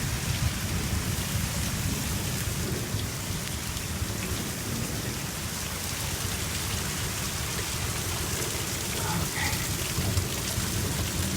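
Heavy rain pouring down steadily, with a continuous low rumble underneath.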